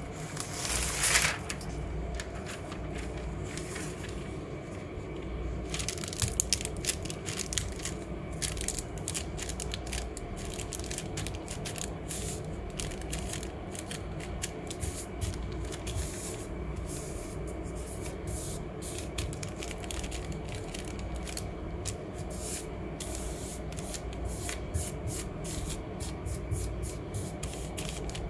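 Thin paper rustling and crackling as a hand rubs it down over a gel printing plate to pull a leaf print, with a steady low hum underneath. A short, loud hiss comes about a second in.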